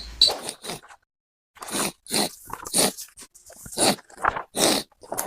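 A person making loud, repeated wet sniffing and snorting noises through a runny nose, one short burst every half-second to second after a brief pause.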